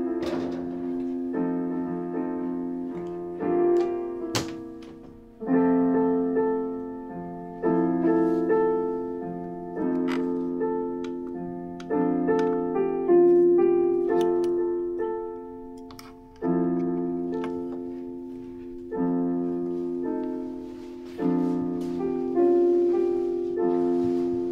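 Slow piano music: chords struck about every two seconds and left to ring out and fade.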